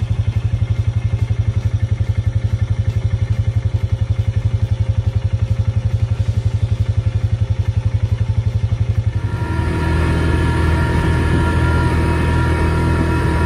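ATV engine idling with an even, pulsing low throb. About nine seconds in it changes to a smoother, steadier running with higher tones as the machine gets under way on the trail.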